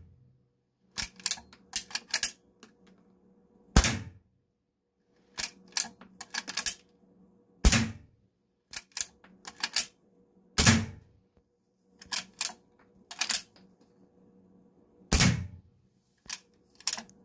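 Henry lever-action .22 LR rifle firing subsonic rounds through a suppressor: four short, muffled shots a few seconds apart. After each shot comes a quick cluster of metallic clicks and clacks as the lever is worked to chamber the next round.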